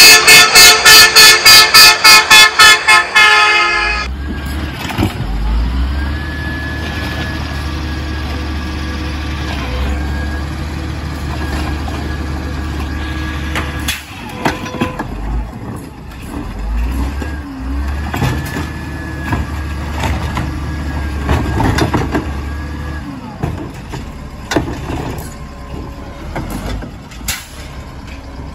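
Loud rapid horn blasts, about three or four a second, for the first few seconds. Then an automated side-loader garbage truck idling, its hydraulic arm whining steadily as it lifts and lowers a wheeled cart, twice, with scattered clunks.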